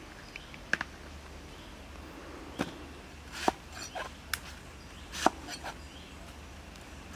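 Sharp knocks, like chopping or striking blows, about five of them at uneven intervals, over a low steady background.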